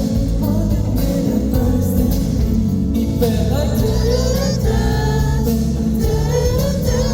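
A male singer singing live over a band with guitar, heard through a concert hall's amplified sound system.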